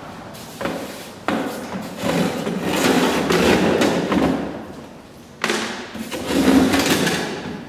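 Sections of aluminium flexible ducting being handled and shifted across a floor: knocks and rubbing, scraping noise in two long stretches, each starting with a sudden knock.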